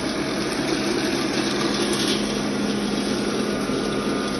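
Stainless-steel colloid mill running steadily, grinding shelled peanuts into paste; a constant machine hum with a steady low tone.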